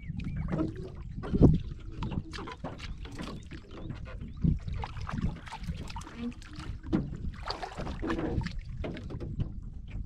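Handling noise in a small wooden boat as a fishing line is hauled in by hand over the gunwale. Irregular knocks and clatters on the hull sound over a low rumble of wind and water, with the loudest knock about a second and a half in.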